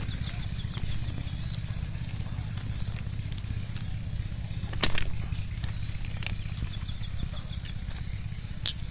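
Railway ballast stones clicking sharply against each other as they are handled and picked up, one loud click about five seconds in and a lighter one near the end, over a steady low rumble.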